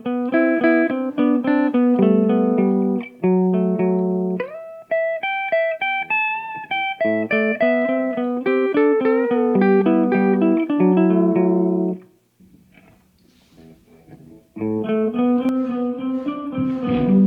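Recorded electric guitar phrase played back by a TC Electronic Ditto looper pedal through a Marshall guitar cabinet: a run of separate picked notes for about twelve seconds, a brief pause, then notes again near the end.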